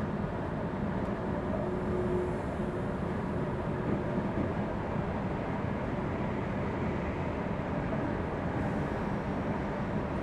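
Semboku Rapid Railway electric commuter train rolling slowly, heard from inside the front of the train: a steady rumble of wheels on rail and running gear, with a faint brief tone about a second in.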